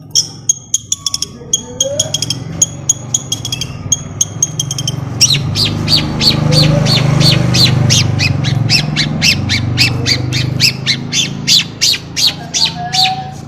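Long-tailed shrike (cendet) singing: a fast series of high chattering notes, then from about five seconds in a run of harsh, scratchy calls at about three a second, with a low rumble underneath in the middle.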